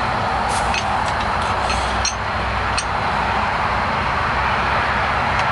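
Steel rod clinking against a cast-iron bench vise several times, with faint metallic ringing, as the hot wand is set into the jaws, over a steady rushing noise.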